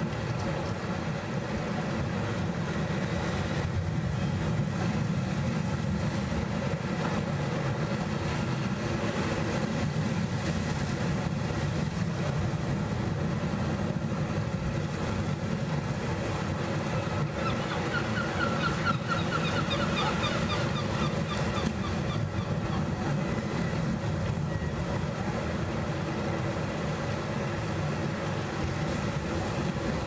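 Sea washing over and around rocks on a rocky shore, with a steady low engine drone underneath. About eighteen seconds in, a bird calls in a quick run of chirps for a few seconds.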